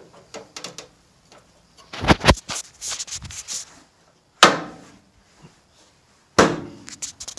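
Jeep JL hood latches being clamped shut on a JK hood. There are a few handling thumps about two seconds in, then two sharp clacks, each with a short ring, about two seconds apart.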